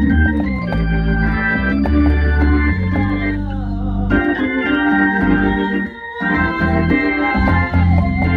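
Two-manual organ playing a gospel hymn: sustained chords over held bass notes, with a brief break in the sound about six seconds in.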